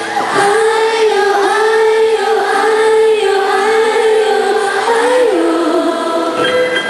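A female pop singer singing a slow ballad live with piano accompaniment, drawing out long held notes. It is heard from the audience in a large hall.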